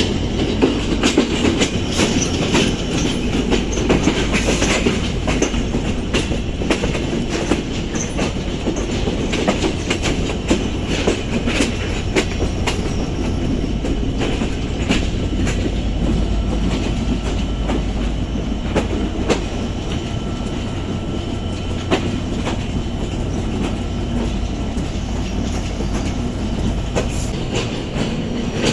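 Passenger train rolling on its rails: steady low rumble with the wheels clacking over rail joints, and brief thin wheel squeals now and then.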